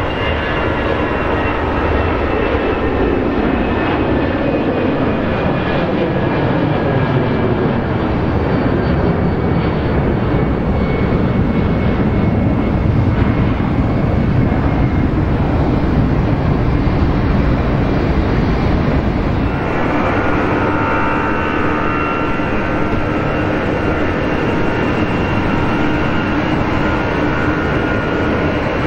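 Airbus jet airliner taking off at full thrust: a steady engine rush with whining tones that slowly fall in pitch as it climbs away. About two-thirds of the way through, the sound switches abruptly to a second Airbus A320's engines running on the runway, with a steadier whine.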